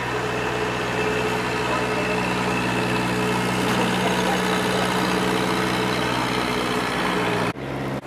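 Long-tail boat's exposed stern-mounted engine running steadily as the boat passes close by, a constant, even hum that breaks off abruptly near the end.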